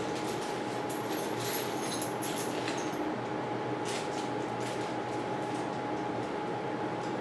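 Light metallic clicks and clinks of small steel bolts being handled, clustered between about one and three seconds in with one more near four seconds, over a steady background hum.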